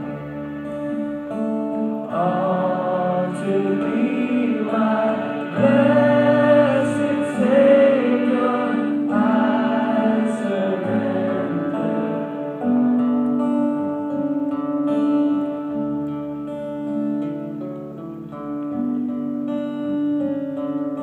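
Live worship song: singing over a strummed acoustic guitar and a second small stringed instrument. The singing stops about twelve seconds in, and the strings play on alone.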